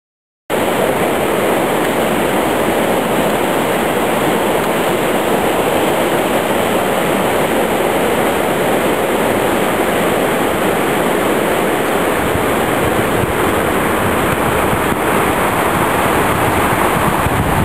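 Swollen, muddy flood-stream rushing over a stony bed and spilling over a stone edge: a loud, steady rush of water that starts abruptly about half a second in.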